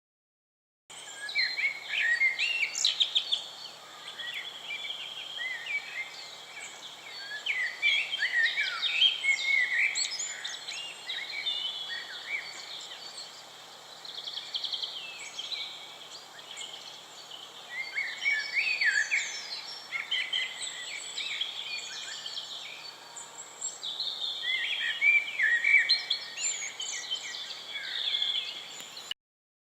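Several songbirds singing at once, a busy mix of overlapping chirps, trills and whistles that swells and eases in waves. The sound starts about a second in and cuts off suddenly near the end.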